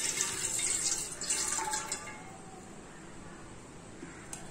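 Rice-soaking water poured from a bowl into an empty metal pot, splashing against the bottom, stopping about two seconds in.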